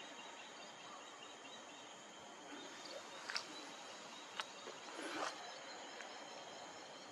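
Faint outdoor ambience with a steady high-pitched hum of several even tones, and three brief sharp sounds a little past halfway.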